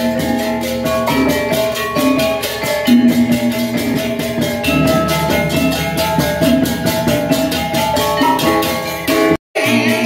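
Balinese gamelan playing: bronze metallophones struck with hammers in a dense, rhythmic texture of ringing tones. The sound breaks off completely for a moment near the end.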